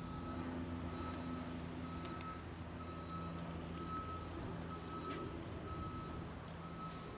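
A vehicle's reversing alarm beeping at an even pace, about one beep a second, over a steady low engine drone.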